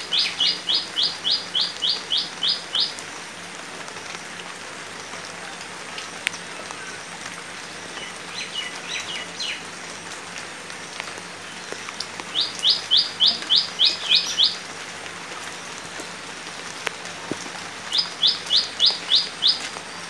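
Light rain falling steadily on flooded ground and banana leaves. Over it, a bird calls in runs of quick, sharp high notes, about four a second: a long run at the start, a faint short one about eight seconds in, and louder runs about twelve seconds in and near the end.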